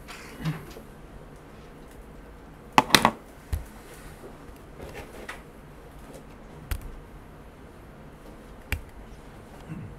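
A few scattered sharp clicks and taps, the loudest a quick cluster about three seconds in, over quiet room tone.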